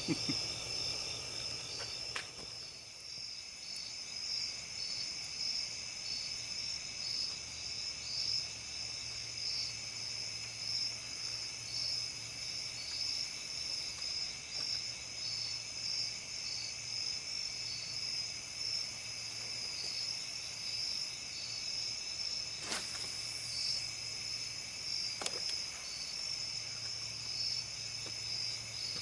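Night chorus of crickets and other insects: a high chirp pulsing evenly and steadily over a continuous high trill, with a faint low hum beneath. A few sharp clicks, three in all, stand out briefly.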